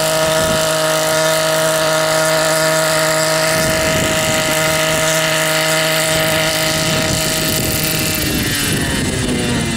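Helipse HE 300 unmanned helicopter's 121.6 cc two-stroke engine and rotors running at a steady pitch as it hovers low and settles onto the ground. About eight seconds in the engine note starts to fall as the rotors spin down after touchdown.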